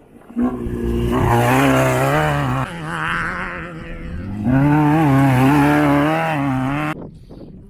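Off-road race vehicle's engine revving hard, its pitch wavering up and down. It eases off about two and a half seconds in, comes back on hard a couple of seconds later, and cuts off suddenly near the end.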